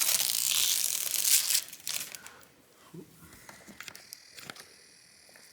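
Plastic packaging bag crinkling and rustling for about two seconds as it is handled around the freshly unpacked replacement touch panel, then dying away to a few faint light ticks.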